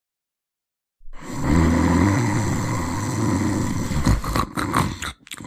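Cartoon snoring sound effect: after about a second of silence, one long, loud, low snore, breaking into a few short choppy sounds near the end.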